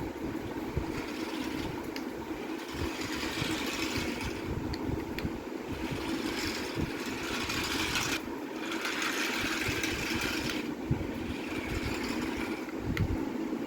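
Small electric motor of a battery-powered remote-control toy plane whirring, with a steady hum under a hissing whir that swells and drops away several times as it is driven.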